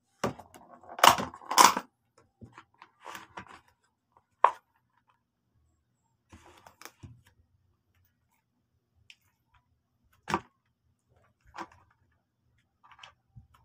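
Crispy fried chicken being handled and picked at in a bowl: scattered crackles of the breading and a few sharp knocks, the loudest pair about a second in.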